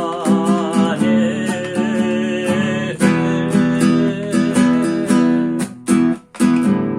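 Instrumental break in a song: an acoustic guitar strumming chords in a steady rhythm, with a short drop-out about six seconds in.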